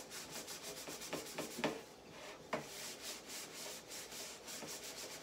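Pan being scrubbed by hand, quick back-and-forth scouring strokes several times a second to work burnt-on crust off, with a few brief knocks.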